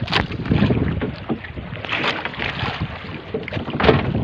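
Wind buffeting the microphone and water sloshing against the hull of a small outrigger boat (bangka) on choppy sea, with a few light knocks.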